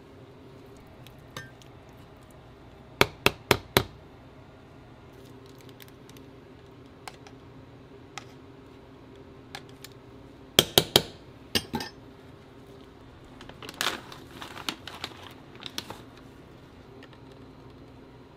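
Sharp clicks and taps of a utensil against dishes while a bowl of shaved ice is being topped, in short runs: four quick ones about three seconds in, a louder cluster near the middle, and a scatter later on. A steady low hum runs underneath.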